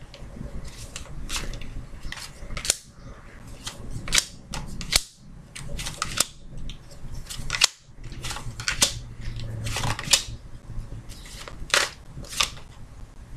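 Tarot cards being dealt one at a time from the deck onto a table mat: a string of sharp, crisp card snaps at irregular intervals, a dozen or more.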